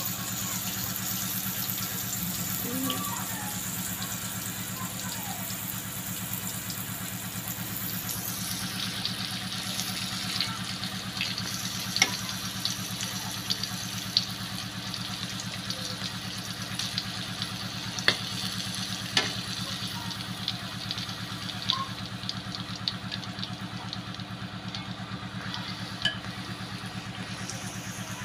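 Battered squid deep-frying in oil in a wok, a steady sizzle that thins out after about eight seconds, with scattered sharp clicks from metal tongs and the wok. Under it runs a steady low motor hum.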